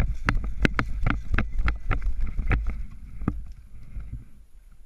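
Running footsteps crunching through dry leaves and twigs, about three sharp steps a second, with wind and movement rumbling on the body-worn camera's microphone. The steps stop a little over three seconds in.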